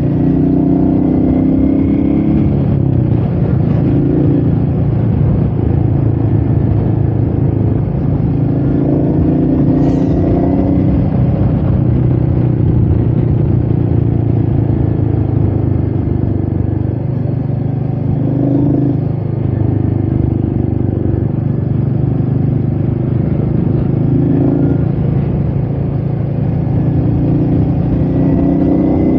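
Royal Enfield Meteor 350's single-cylinder engine running as the bike rides along, with wind on the microphone. The engine note shifts in pitch several times as the throttle changes.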